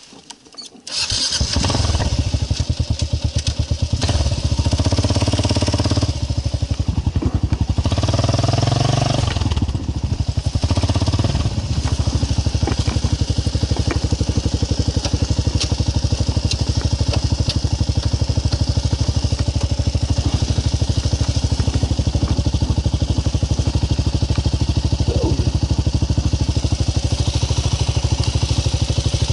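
Kawasaki KLR650's single-cylinder four-stroke engine starting about a second in, running unevenly with changing revs for several seconds, then settling into a steady, even idle.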